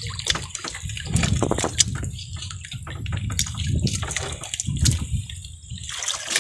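Wet monofilament fishing net being hauled hand over hand into a small boat, seawater dripping and splashing off the mesh with scattered small clicks and knocks, over a low steady rumble.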